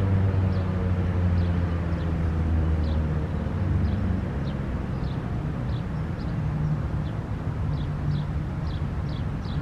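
American Signal T-128 outdoor warning siren winding down at the end of its short alert, its falling tone fading within the first couple of seconds. A steady low rumble underneath drops off about four seconds in, and faint high chirps repeat throughout.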